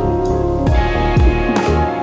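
Background music: sustained instrument tones over a drum beat.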